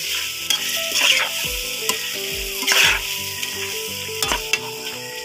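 Beef skin, onions and black beans sizzling in a metal pot while a spoon stirs them, with a few scraping strokes against the pot.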